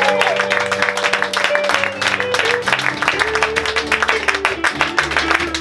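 Live band music: strummed guitar over a bass line that steps between held notes, with some applause from the audience.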